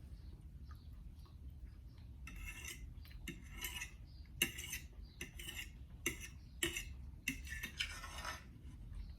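Metal cutlery clinking and scraping against a dish while eating: quiet for the first couple of seconds, then a run of short sharp clinks and a few longer scrapes.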